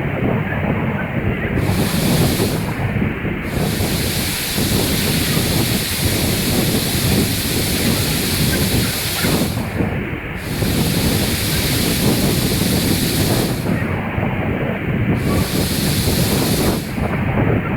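Steady rush of water from a tall waterfall falling into its pool, with wind noise on the microphone.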